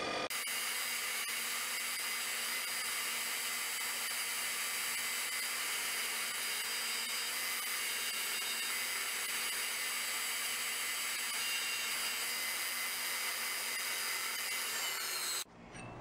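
Bench grinder running steadily with a fan motor's shaft held against its spinning wheel, rubbing off old hardened grease and crud. The sound cuts off suddenly near the end.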